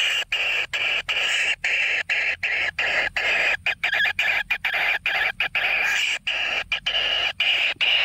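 Kingfisher nestling's harsh, hissing begging rasps, repeated about three times a second.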